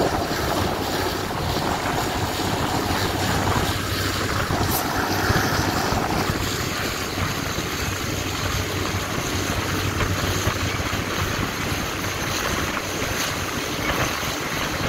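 A moving passenger train heard from an open carriage window: wind buffets the microphone over the steady rumble of the running train, with a low hum underneath. A few faint clicks come through now and then.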